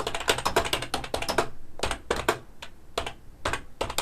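EvoFox Warhammer gaming keyboard being typed on. A fast run of keystroke clacks lasts about a second and a half, then slower, scattered keystrokes follow in small clusters.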